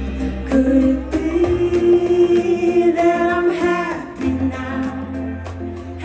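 Live pop band playing a song: a lead vocal sung over a bass line and band backing.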